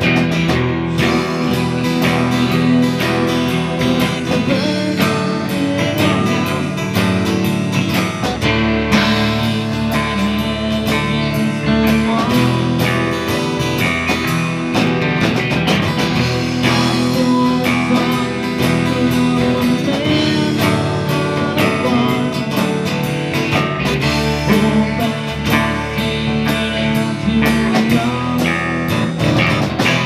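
Live rock band playing a song: electric and acoustic guitars, keyboard and drums, loud and steady, with regular drum hits.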